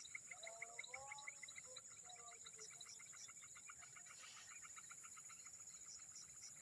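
Faint swamp-side wildlife: a steady high-pitched insect drone under a fast, regular chirping at about six pulses a second, with a few short gliding bird whistles in the first second or so. There is a brief rustle about four seconds in.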